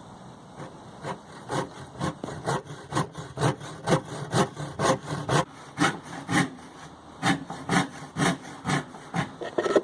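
Hand saw cutting a strip of wood, in steady back-and-forth strokes about two a second, starting about half a second in.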